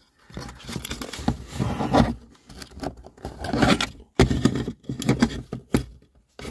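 Hands working a dash speaker and its cloth-wrapped wiring harness out of a plastic dashboard cavity: irregular rustling and scraping with many sharp plastic clicks, broken by short pauses.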